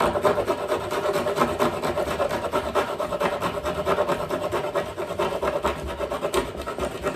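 Glued-in oak dowel being cut down flush with the hickory cabinet surface: a continuous, even rasping of a tool working through the wood, with a faint steady tone under it.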